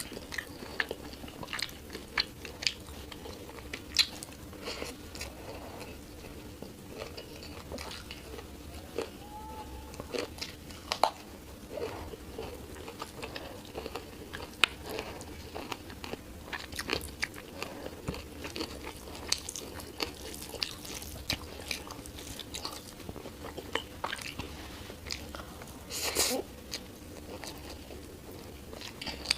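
A person eating rice and curry close to the microphone: chewing and biting with many short, sharp mouth clicks and smacks. Near the end comes one louder rush of noise lasting about half a second.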